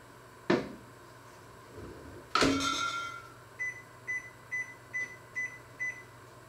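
A sharp knock, then a louder metallic clang that rings for about a second, followed by six short electronic beeps about half a second apart from a kitchen appliance's beeper.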